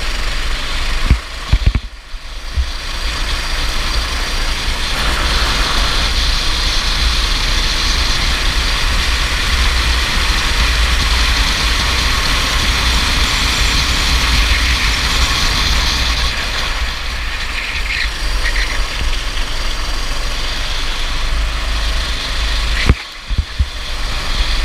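Go-kart engine running under way, with heavy wind rumble on the onboard microphone. A few sharp knocks come a second or two in and again near the end, each with a brief drop in the noise.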